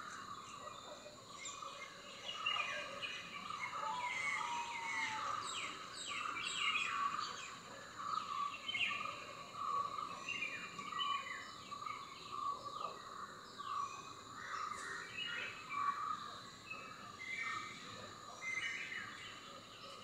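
Many small birds chirping and twittering, with quick downward-slurred notes, over a steady high insect drone.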